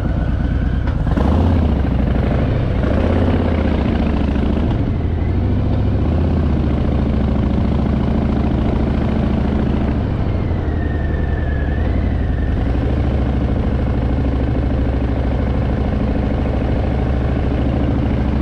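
Harley-Davidson Fat Boy's V-twin engine running, its pitch rising and falling a few times in the first few seconds, then holding steady.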